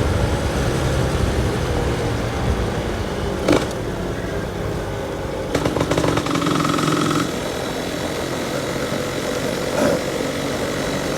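Yamaha F1ZR's two-stroke single-cylinder engine running at light throttle with a low grumbling exhaust; the low rumble drops away about six seconds in.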